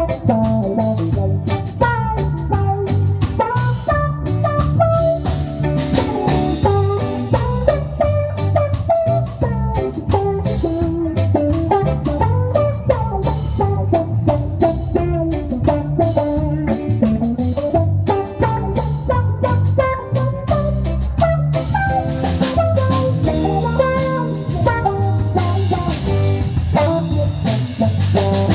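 A band playing an instrumental passage of a song: guitar with drum kit and a steady low bass line, with no vocals.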